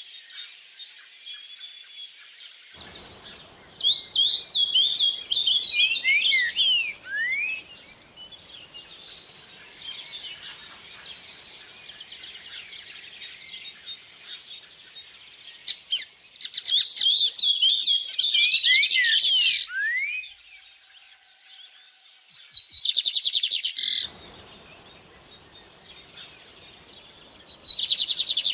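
Songbirds singing in four loud bursts of rapid chirps and down-slurred whistles, over a faint steady rush of stream water.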